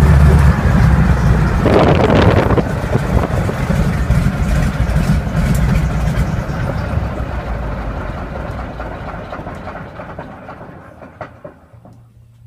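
Pratt & Whitney R-985 nine-cylinder radial aircraft engine on a ground run being throttled back. Its heavy low running note drops off about half a second in, there is a brief rough burst around two seconds, and then the engine sound dies away steadily to nothing.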